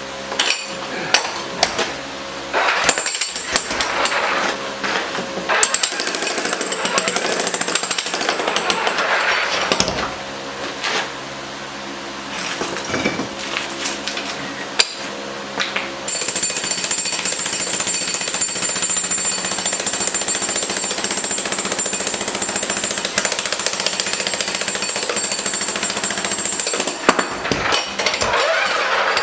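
Jackhammer chipping out concrete curbs. It hammers in uneven runs with short breaks during the first half, then runs steadily from about halfway on.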